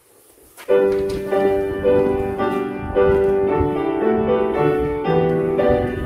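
Piano comes in about a second in, playing the chordal introduction to hymn number 36 ahead of congregational singing.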